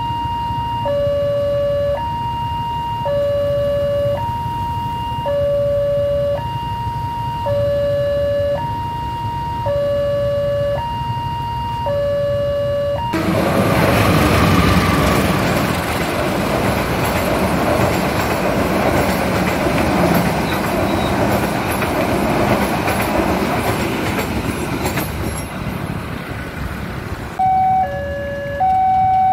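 Electronic railway level-crossing warning bell sounding a steady high-low two-tone alarm, each tone about a second long, over idling motorbikes. About 13 seconds in it cuts abruptly to a KAI diesel locomotive and passenger coaches rumbling past at close range. Near the end it cuts to another crossing alarm, a quicker two-tone pattern.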